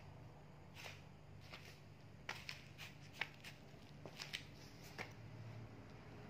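Faint, scattered clicks and light taps of a baby monkey chewing and handling a plastic toothbrush, over a low steady hum.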